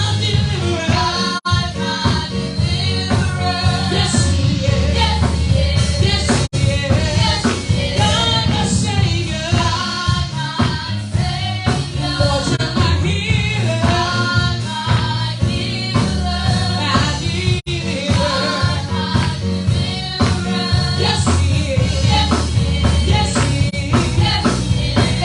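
Gospel praise music: singing over a band with a heavy bass line, cutting out for an instant three times.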